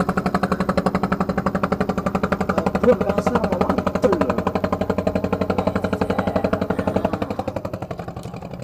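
An engine running steadily with a rapid, even thudding beat, easing off a little near the end.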